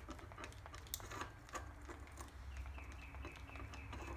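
Hand lever-action grease gun being pumped into the worm-gear housing of a Cub Cadet steering column, giving faint scattered clicks and squishes as grease is forced in. A low steady hum runs underneath.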